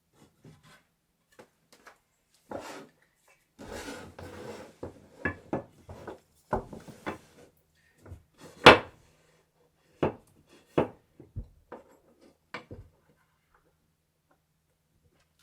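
Wooden bed parts being handled during assembly: irregular knocks and clatters of wood with a short stretch of rubbing, the loudest knock a little past halfway.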